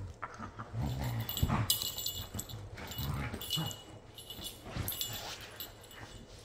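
Two dogs play-fighting, one a red-and-white husky, giving low play growls and grumbles in short bouts, strongest about a second in and again around three seconds, with some scuffling in between.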